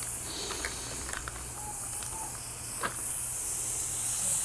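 Marinated chicken legs sizzling on a hot gas barbecue grate, a steady high hiss, with a single light click a little under three seconds in.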